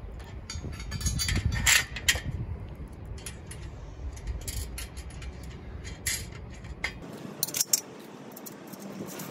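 Steel bolts, washers and nuts clinking and tapping against a steel bike-rack bracket and top bar as M8 bolts are pushed through and nuts threaded on by hand: scattered sharp metallic clicks, loudest about two seconds in.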